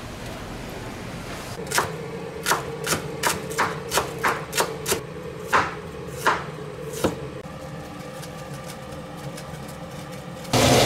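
Chef's knife cutting fresh ginger on a bamboo cutting board: about a dozen sharp knocks of the blade hitting the board, irregularly spaced, from about two seconds in to about seven. Just before the end a loud, steady rushing noise cuts in.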